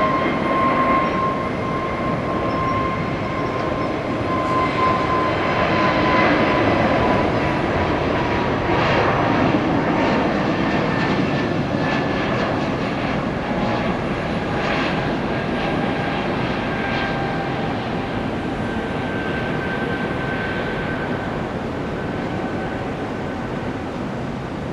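Airbus A320neo jet engines at takeoff power, a steady roar with a high whine that slowly falls in pitch as the airliner accelerates down the runway and climbs away.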